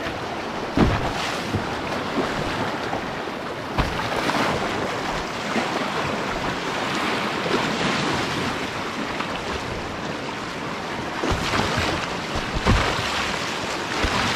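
Fast, choppy river water rushing around a canoe, with wind buffeting the microphone. A few dull thumps break through: about a second in, near four seconds, and near the end.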